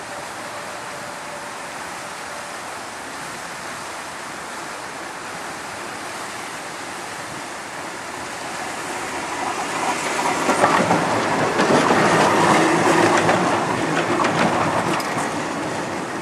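Vintage Rotterdam tram, motor car 522 with trailer 1001, approaching on grassed track and passing close by, its wheels clicking and rattling over the rails. It grows louder from about halfway through, is loudest just after, then fades as it moves away.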